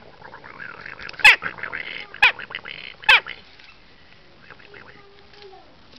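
Western jackdaw calling: three loud, short calls about a second apart, each falling in pitch, with quieter chattering between them.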